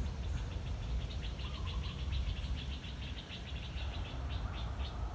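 A steady run of short, high chirps from a small animal, about five a second, over a low rumble.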